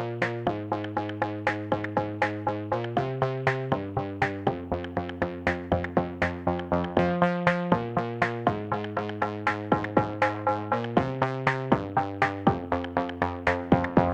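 Background electronic music: synthesizer chords over a steady quick drum-machine beat.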